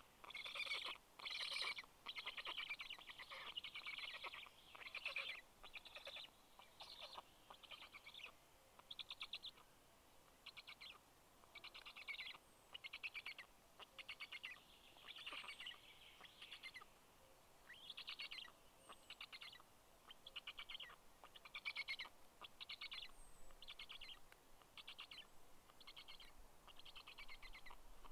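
Black stork nestlings begging: a long series of short, rasping calls, roughly one a second. A few faint, thin, high falling notes from another bird can be heard behind them.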